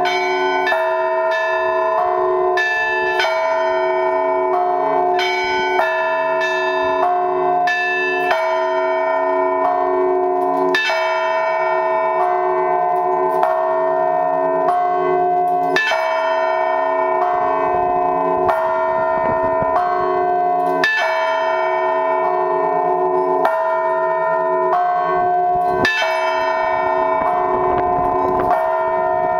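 Orthodox church bells rung by one bell-ringer in a weekday peal. The podzvon bells are struck in a quick repeating pattern, about two strokes a second, over the long ringing hum of the larger blagovestnik bells. From about ten seconds in, a heavier stroke comes roughly every five seconds.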